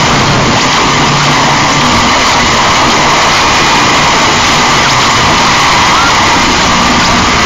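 Harsh noise: a loud, unbroken wall of distorted static with no beat or pauses.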